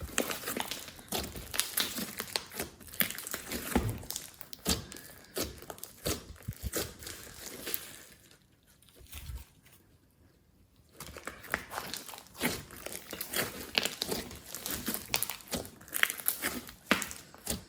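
Glossy slime being squeezed and worked by hand: a dense, irregular run of sticky clicks and crackles. About halfway through it stops for about three seconds, then starts again.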